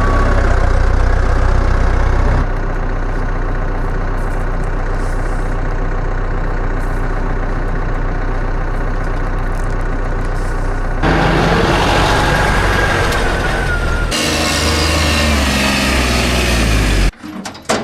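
Engine of farm machinery running steadily, with the sound changing abruptly a few times and a high whine in the later part. It stops sharply shortly before the end.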